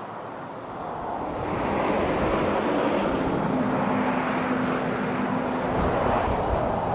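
An engine running under a loud rushing noise that swells about a second and a half in, with a steady low hum and a faint high whine through the middle.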